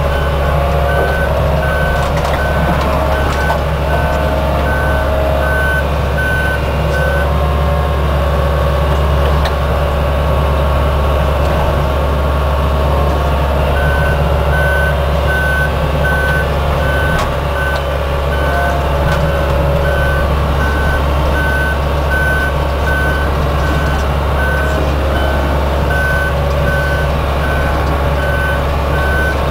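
Diesel engine of a small excavator running steadily, with a backup-type alarm beeping at an even pace; the beeping stops about a quarter of the way in and starts again near the middle.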